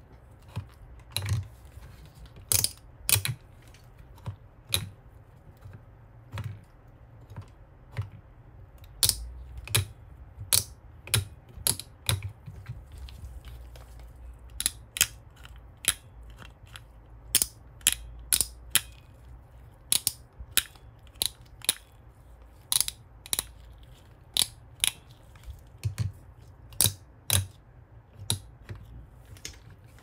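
Small plastic Minion toy handled with gloved hands: irregular sharp clicks and taps of hard plastic parts, with some knocks against the tabletop, at times several a second.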